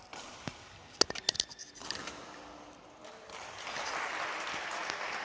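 Spectators in a badminton hall clapping: a few sharp claps about a second in, then a spell of steady applause building over the last two seconds.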